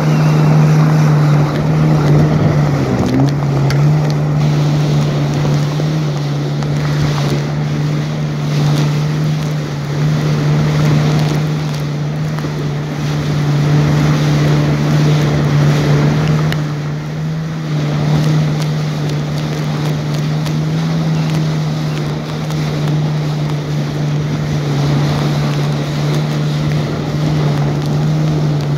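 Jet ski engine running steadily at speed, a constant drone over rushing water and wind on the microphone. The engine pitch dips briefly and picks back up about three seconds in.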